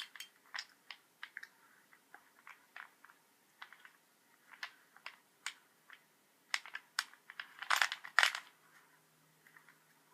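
Plastic Rubik's cube being twisted by hand: irregular clicks and clacks as its layers turn, with a louder quick run of turns about eight seconds in.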